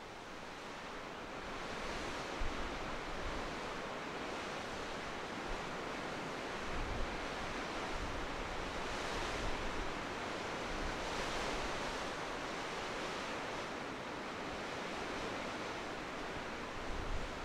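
Strong wind rushing through pine and forest trees on a mountainside, a steady roar that swells and eases in gusts, with occasional low buffeting of wind on the microphone.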